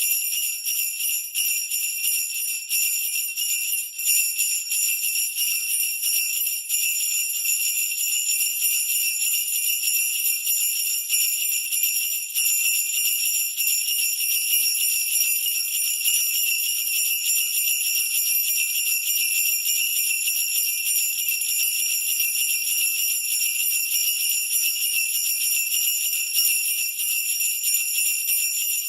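Sleigh bells shaken continuously in a steady, rapid jingle.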